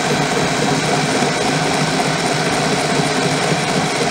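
Cordless drill running steadily in reverse at slow speed, its screw-extractor drill bit boring into the head of a stripped screw.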